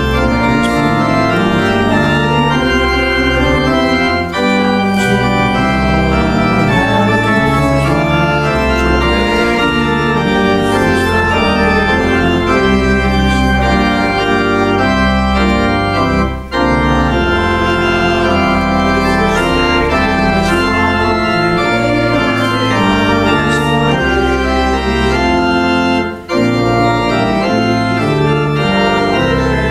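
Church organ playing sustained chords over a moving bass line, with short breaks between phrases about four, sixteen and twenty-six seconds in.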